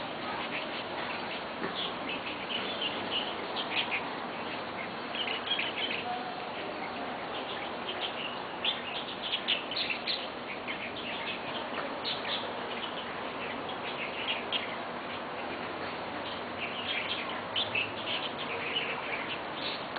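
Birds chirping and calling, short bright notes coming in clusters over a steady background hiss.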